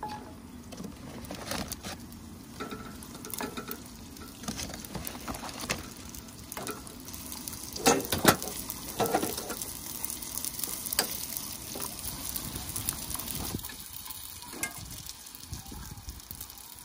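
Food sizzling in a frying pan as it is stirred, with scattered knocks against the pan; the loudest knocks come about eight seconds in.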